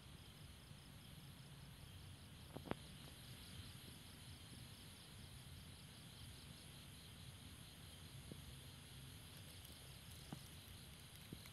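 Faint, steady pulsing chorus of night insects, with a few soft clicks, the sharpest about a quarter of the way in.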